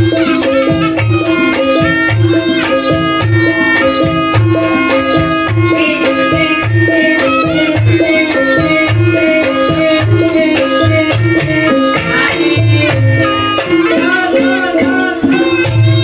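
Banyumasan Javanese gamelan music accompanying an ebeg dance: a hand drum beats in a steady rhythm under a stepping melody and sustained gong-like tones.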